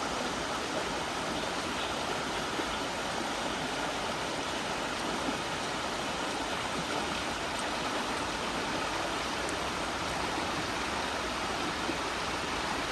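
Small rocky stream flowing steadily between stones, a continuous rush of running water.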